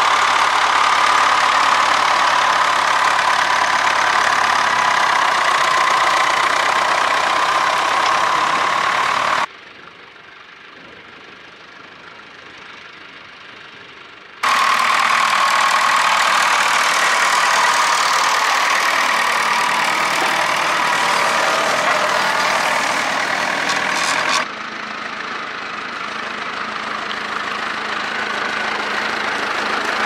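Vintage Nuffield tractor engine running steadily under load while pulling a plough, heard close. The sound is broken by edit cuts: a quieter stretch of about five seconds falls between two loud stretches. Near the end a different tractor's engine comes in and grows steadily louder.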